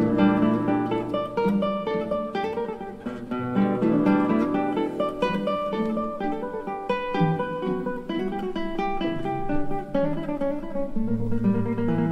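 Classical guitar playing a quick solo passage of plucked notes and chords in a guitar concerto, with the orchestra holding low notes softly beneath it.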